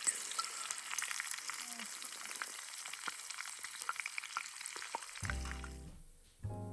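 Food sizzling in a hot iron mestin pan, a steady hiss with frequent sharp pops and crackles. About five seconds in the sizzle fades out and plucked, piano-like music begins.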